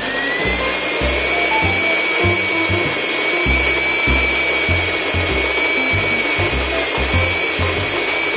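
Electric stand mixer kneading bread dough with its dough hook. The motor's whine rises in pitch during the first second as the mixer is sped up from slow to fast, then runs steadily. Background music with a low beat plays underneath.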